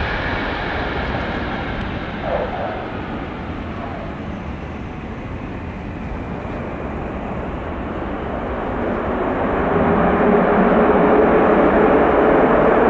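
Jet airliner engines running. A high whine fades over the first few seconds, then a louder jet rumble with a steady hum builds from about three-quarters of the way in.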